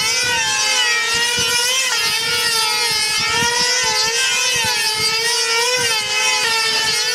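Small two-stroke engine of a control-line combat model plane running at high speed, a steady high whine whose pitch rises and falls about once a second as the plane circles the pilot on its lines.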